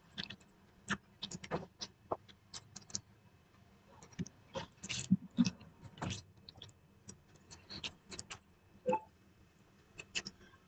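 Eating by hand: irregular small wet clicks and smacks from chewing and from fingers mixing rice and dal on a plate.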